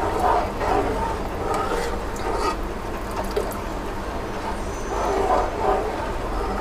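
Sugar syrup with milk bubbling in a metal pot on the stove, stirred with a steel spoon that scrapes and clicks against the pot. A steady low hum runs underneath.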